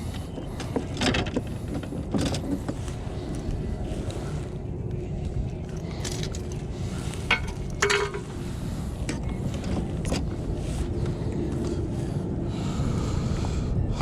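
Wind rumbling on the microphone, with scattered knocks and rattles of gear handled on a kayak, loudest around seven to eight seconds in.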